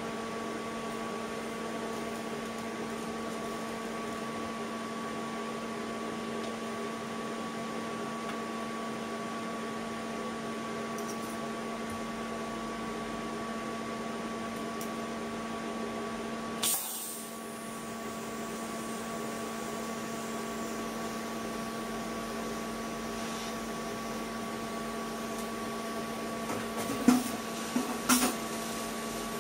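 TIG welder humming steadily, with one sharp crack about halfway through and a few sharp pops near the end as the arc is struck on the stainless steel tube.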